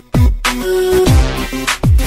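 Music track: deep kick-drum hits that drop sharply in pitch, about three in two seconds, under held steady notes, after a brief drop-out at the very start.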